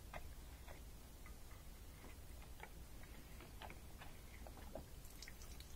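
Faint, irregular drips and small ticks as leftover water runs out of the open drain filter housing of an LG front-loading washer. This is water that the failing drain pump left standing in the tub.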